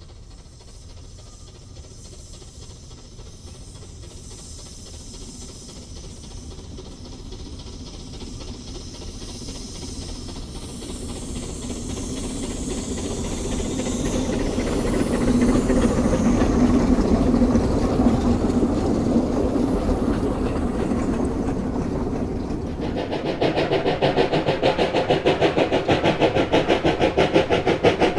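Narrow-gauge Quarry Hunslet steam locomotives working a train, their steam hiss and running noise growing steadily louder as they approach and pass. About 23 seconds in, a fast, even beat takes over and keeps going.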